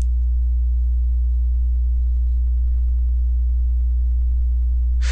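Steady low electrical hum with faint higher overtones, unchanging throughout.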